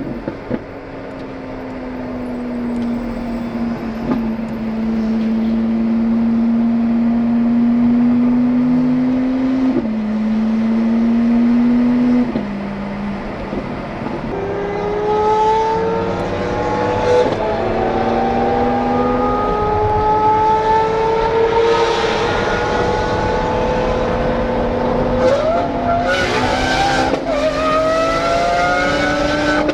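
Lamborghini Aventador SVJ's V12 through a Gintani aftermarket exhaust, heard from a following car. It runs steadily at first, then accelerates through the gears, the pitch climbing and dropping back at each upshift, with a few sharp cracks near the end.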